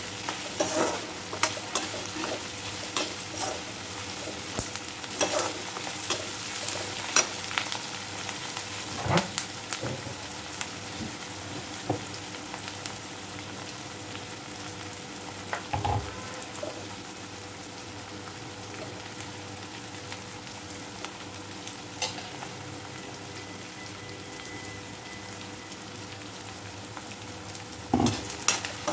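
Sliced onions sizzling in hot oil in a kadhai while a metal spatula stirs them, scraping and knocking against the pan. The stirring knocks come often in the first half, thin out in the middle, and bunch up again near the end.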